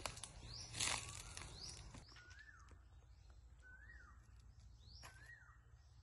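A bird repeating a short two-part call about every second and a half: a quick high upward note, then a lower whistle that rises and falls. A brief rustling noise comes about a second in.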